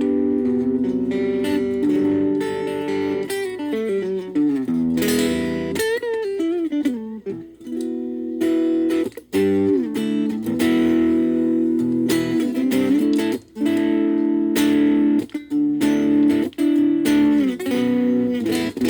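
Gaban Les Paul-type electric guitar played through a VOX Soundbox Mini amp: ringing chords and notes, with a descending slide and wavering bends around the middle, then strummed chords broken by short stops.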